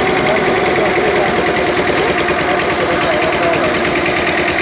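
An engine running steadily at an even speed, with a constant drone.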